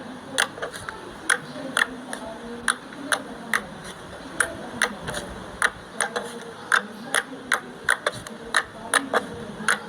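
Slime being squeezed and poked, making sharp little clicking pops of trapped air, about two to three a second, unevenly spaced.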